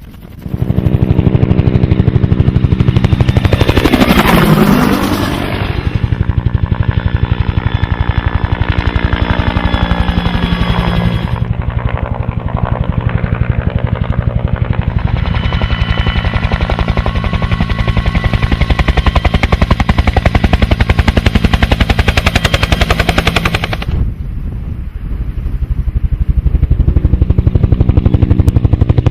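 Aircraft in flight, running steadily with a fast, even pulsing beat. There is a brief dip in level late on.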